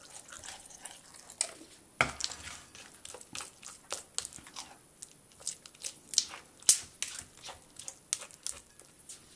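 Plastic spoon stirring clear glue and activator in a glass bowl as the mix thickens into sticky slime: irregular sticky clicks and taps, the loudest about two seconds in and again near seven seconds.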